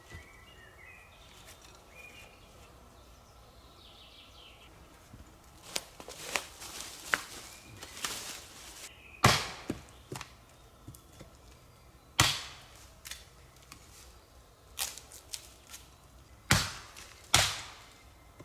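A run of sharp chopping knocks with smaller clicks and cracks between them. The four loudest strikes come a few seconds apart in the second half. Faint bird chirps can be heard in the first few seconds, before the knocks begin.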